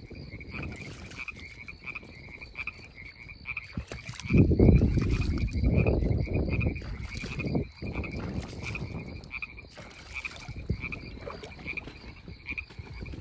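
Frogs calling at night: a steady run of short, high croaks, about three a second. From about four seconds in, a louder low rushing noise lasts some three seconds before dying back.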